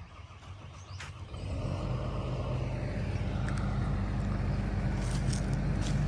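Caterpillar hydraulic excavator's diesel engine running, a steady low drone that swells in about a second and a half in and then holds.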